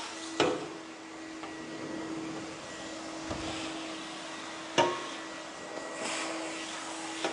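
Corded vacuum cleaner running with a steady motor whine and airflow hiss as it is pushed over the floor, with two sharp knocks, one just after the start and one about two-thirds of the way through.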